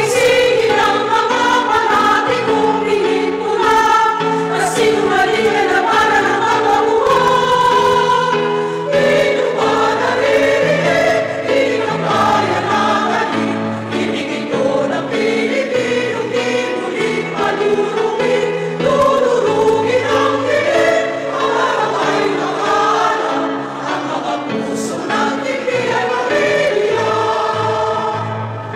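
A large choir singing a Tagalog song together over steady held accompaniment chords.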